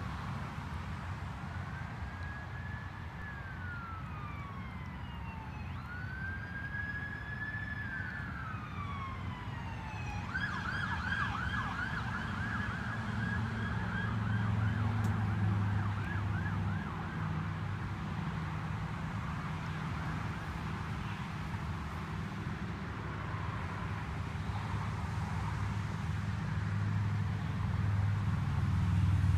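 Emergency vehicle siren: two slow wails rising and falling in pitch, then a fast yelping warble about a third of the way through that fades away. A steady low rumble runs underneath.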